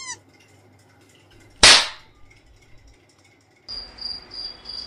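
A single sharp, loud crack about one and a half seconds in, dying away quickly. Near the end a high cricket chirping cuts in abruptly and pulses evenly, about two or three chirps a second.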